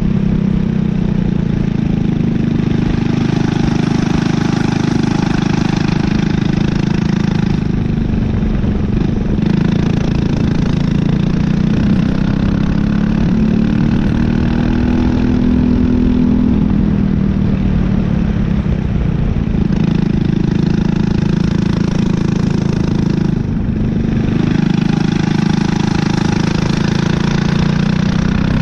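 Briggs & Stratton LO206 four-stroke single-cylinder kart engine running hard at racing speed, heard onboard. Its pitch rises and falls with engine speed through the lap, dipping sharply once about three-quarters of the way through.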